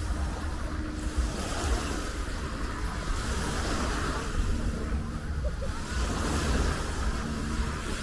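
Small waves washing up on a sand beach, with wind buffeting the microphone as a steady low rumble.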